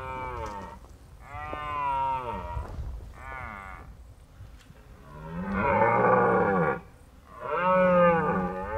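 Red deer stags roaring in the rut: a series of about five drawn-out, deep, bellowing calls, each around a second long, with the last two the loudest.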